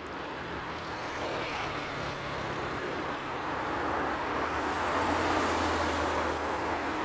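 Road traffic passing close by: tyres and engines of cars on the street, swelling to its loudest about five seconds in as a car drives past.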